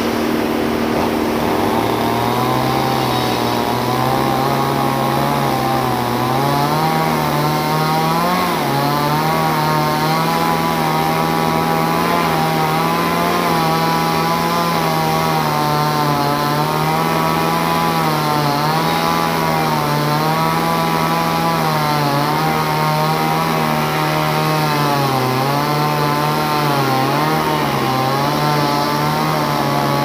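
Two-stroke chainsaw cutting into a sonokeling (Indonesian rosewood) hardwood log: it revs up about a second in and runs under load, its engine pitch rising and dipping as the chain bites into the wood. A steady hum runs underneath.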